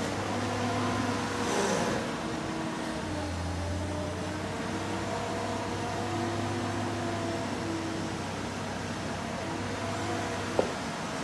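Marine travel lift's engine running steadily with an even hum while the hoist is driven. A brief hiss comes about a second and a half in, and a single sharp click near the end.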